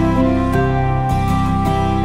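Soft, tender instrumental background music: held notes that move to a new note about every half second, at an even volume.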